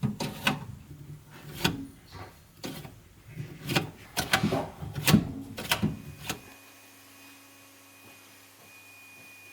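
Knocks and clatters of a new refrigerator's drawers, shelves and door being handled, about a dozen, which stop abruptly about six and a half seconds in. A faint steady hum follows.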